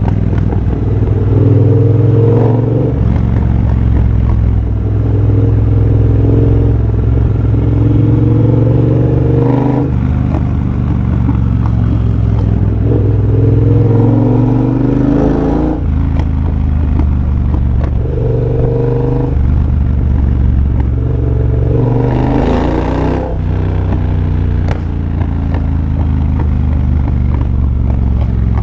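2023 Triumph Bobber's 1200 cc parallel-twin engine running through a de-catted X-pipe and Motone Shorty exhaust while riding. The throttle opens and the note rises about six times, each time dropping back off, which fits accelerating through the gears.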